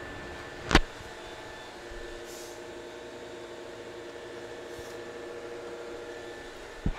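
Steady hum of a running fan with a few even tones. A sharp knock comes just under a second in, and a smaller one just before the end.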